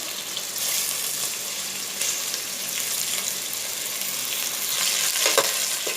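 Boneless chicken pieces sizzling steadily in hot oil in a pan. There is a single knock about five seconds in.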